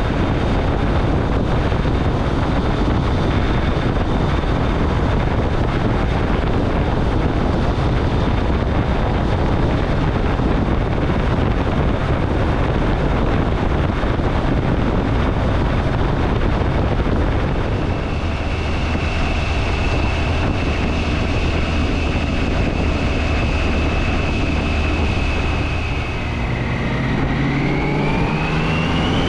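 Triumph Tiger 800 XCA motorcycle's three-cylinder engine running at road speed under heavy wind noise. Near the end the engine note drops briefly, then rises as the bike accelerates.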